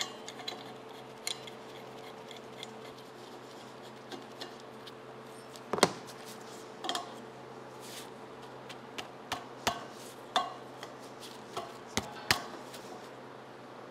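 Scattered metal clicks and clinks as a brass regulator is handled and tightened with an adjustable wrench onto a gas cylinder valve, with a louder knock about six seconds in and a run of sharper clicks near the end. A steady low hum runs underneath.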